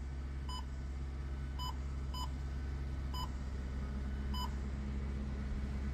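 Five short, single key beeps from a Soundstream car stereo head unit as its buttons are pressed, coming irregularly about a second apart. Underneath is a steady low hum from the running car.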